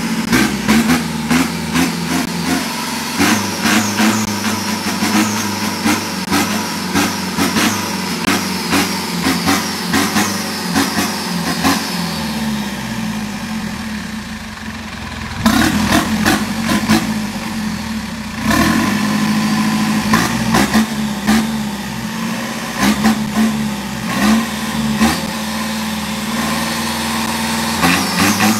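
A modified big-turbo diesel long-tail boat engine of about 1,900 cc, running on a stand and blipped by hand over and over. Each rev brings a turbo whistle that rises and falls. It eases down for a few seconds about halfway through, then revs up sharply again.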